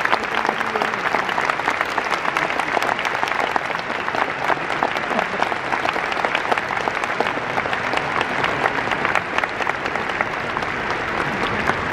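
Large stadium crowd applauding steadily, thousands of hands clapping.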